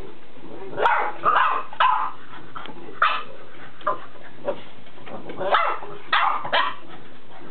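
Boxer dog barking: about nine short barks, some in quick pairs, spread over several seconds.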